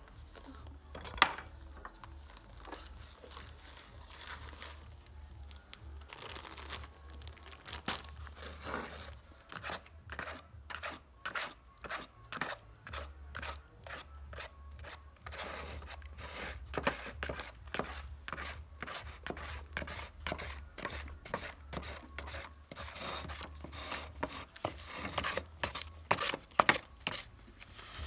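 Paper bag of black tile grout powder rustling as it is handled and tipped out. Then a wooden spatula scrapes and stirs the dry grout in a plastic tub, a quick run of scrapes from about ten seconds in.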